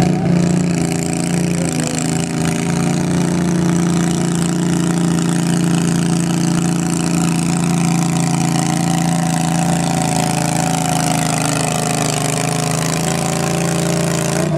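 Garden tractor engine running steadily under load, its pitch held nearly constant, as it slowly drags a weight sled in a tractor pull.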